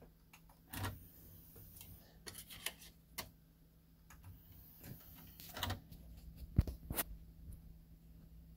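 Marantz SA-11S1 Super Audio CD player's disc tray opening and closing at the push of its front-panel button: a string of short mechanical clicks and whirs from the loading mechanism, ending in a few sharp clicks about six and a half seconds in as the tray shuts and the player starts reading the disc's table of contents.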